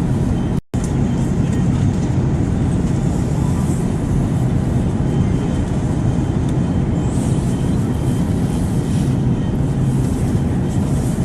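Steady airplane noise used as white noise: a constant low rumble with a rushing hiss above it. It cuts out for an instant less than a second in, then carries on unchanged.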